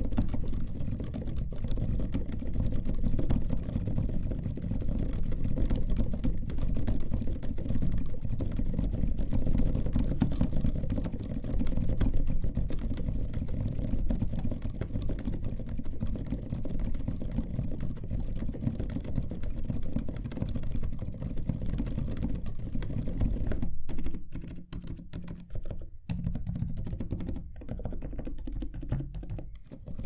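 Steady typing on an Ergodox split keyboard with an acrylic case and lubed MX Zilent silent switches (MX Silent Red stems in Zealios housings, 63.5 g springs): a dense run of muted keystrokes, mostly low in pitch, thinning to scattered presses with short pauses near the end.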